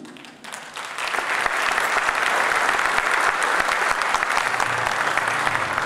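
Audience applauding, starting about a second in and holding steady, as a plaque is presented on stage.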